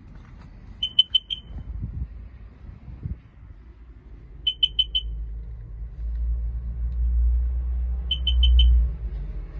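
Sea-Doo GTX personal watercraft's electronic beeper sounding four quick high beeps, three times about three and a half seconds apart. Under it a low rumble swells about six seconds in and cuts off shortly before the end.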